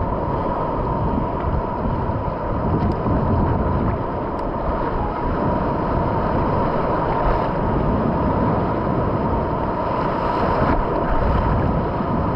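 Surf washing and churning around pier pilings close to the microphone, with wind buffeting the microphone throughout. A thin steady whine runs underneath.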